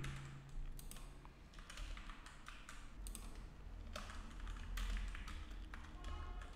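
Typing on a computer keyboard: faint, irregular keystrokes in short runs.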